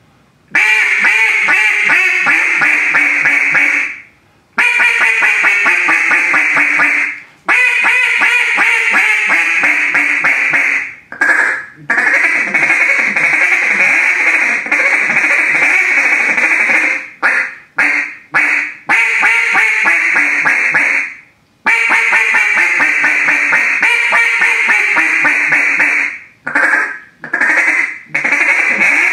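FDWC Juggernaut, a timber-style single-reed duck call, blown in long runs of rapid, loud, raspy duck quacks broken by several brief pauses.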